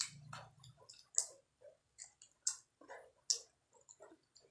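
Close-up mouth sounds of eating chicken lollipop off the bone: an irregular string of short wet clicks and smacks of chewing and lips, three of them sharper than the rest.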